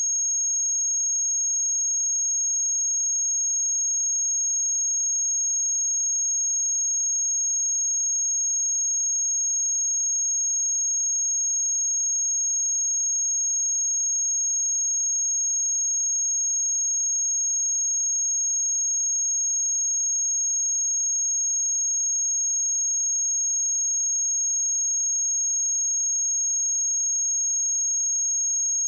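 A pure 6533 Hz sine-wave test tone: a single high-pitched whistle held perfectly steady, with no change in pitch or loudness.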